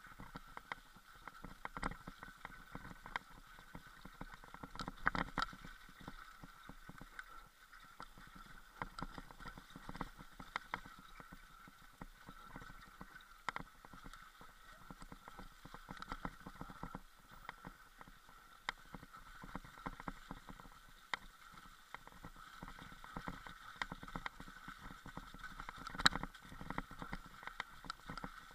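Mountain bike riding down a rough, muddy singletrack, with a steady run of scattered clicks, knocks and rattles as it jolts over the ground; one sharp knock near the end is the loudest.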